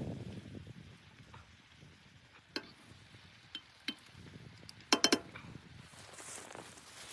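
Sharp light clinks of hard objects knocked together: single clicks about two and a half and four seconds in, then three quick loud ones about five seconds in, over soft rustling and shuffling.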